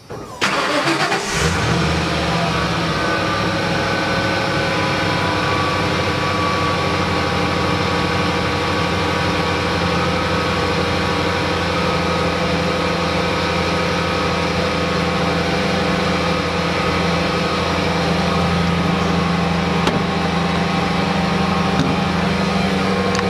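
1994 Ford F150's 5.0 V8 starting from cold after sitting a day: it cranks briefly and catches about half a second in, then settles into a steady idle.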